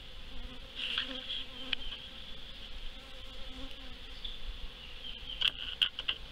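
Honey bees buzzing as they fly around a hive entrance, still agitated after being moved from their nuc; the buzz wavers as bees pass close, over a steady high-pitched insect drone. A few sharp clicks sound near the end.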